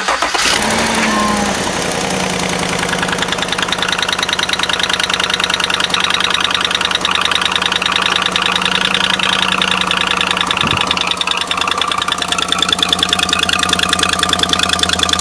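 2016 Chevy Silverado engine just started from cold, fast-idling with a rapid ticking: the infamous cold-start tick, which the owner traces to broken exhaust manifold studs on the passenger side. About ten seconds in the idle drops a little lower.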